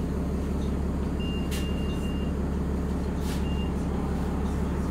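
City bus running steadily, its engine drone heard from inside the passenger cabin. A high electronic beep sounds about a second in and lasts about a second, with a shorter beep near three and a half seconds and two brief hisses.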